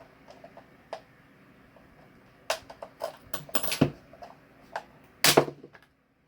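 Plastic clicks and clacks from a small Bluetooth speaker's casing being pulled apart and handled, a scatter of sharp knocks with a busy run in the middle and the loudest knock about five seconds in.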